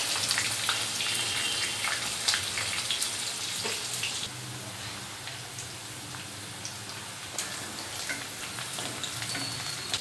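Chopped onions and green chillies sizzling in hot oil in a kadai, with many small crackling pops. The frying is loudest at first and drops to a quieter sizzle about four seconds in.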